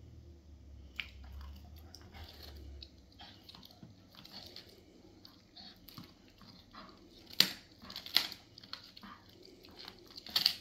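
A borzoi gnawing and chewing on a bone, with irregular wet crunches and cracks; the sharpest cracks come about seven and eight seconds in, with another near the end.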